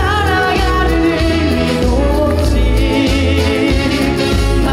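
A live pop ballad: a male singer holds a long note with vibrato over band accompaniment with a steady bass.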